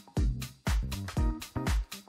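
Background dance music with a steady kick-drum beat, about two beats a second, and synth notes between the beats.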